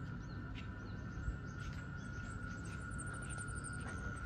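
Quiet outdoor ambience: small birds chirping high, with a quick run of chirps about three seconds in, over a steady high-pitched tone and a low rumble.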